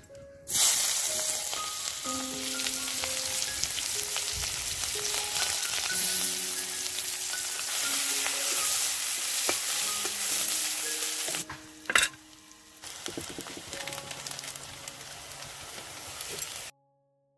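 Sliced onions hitting hot oil in an iron kadai about half a second in and sizzling loudly as they fry and are stirred with a spatula. The frying breaks off for a moment about two-thirds through, with one sharp knock, then resumes and cuts off suddenly near the end. Soft background music notes lie underneath.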